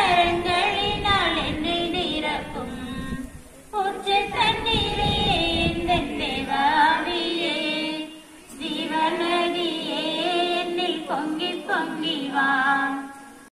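Female voices singing unaccompanied, a song in long held phrases with short breaks about four and eight seconds in.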